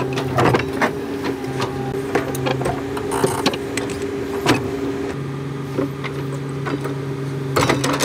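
Komatsu 200 excavator's diesel engine running steadily, with irregular metallic clanks and knocks over it.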